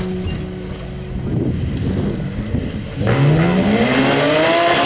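Off-road competition buggy's engine running, then revving hard about three seconds in, its pitch climbing steeply as the buggy powers up out of the obstacle.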